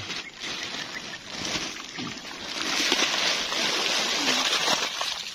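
Water rushing and splashing out of a plastic fish-transport bag into a slotted plastic basket as live common carp are tipped out. The pour grows louder about halfway through and stops just before the end.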